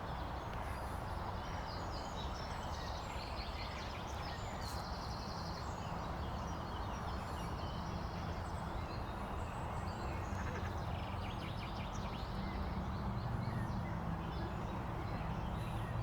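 Small birds chirping and twittering in many short, scattered calls over a steady low rumble.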